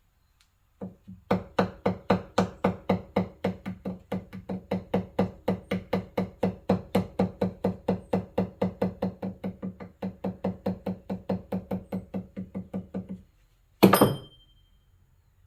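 Hammer tapping rapidly on a steel part, about five light strikes a second, each with a short pitched ring, working a flattened end back round. The tapping stops about 13 seconds in, and one harder metallic clang with a bright high ring follows a moment later.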